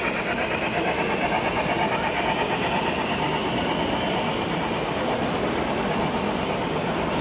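HO scale heavyweight passenger cars rolling past on the model railroad track, a steady rolling rumble of small metal wheels on rail, heard close up.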